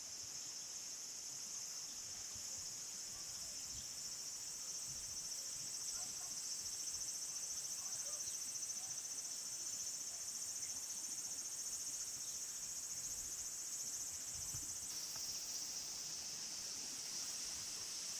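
Chorus of insects such as crickets: a steady, high-pitched shrill with a fast pulse, its tone shifting slightly about 15 seconds in.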